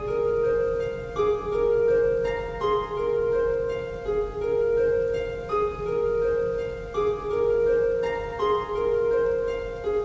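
Soft instrumental background music: a plucked-string melody over a held lower note, with the notes changing about once a second.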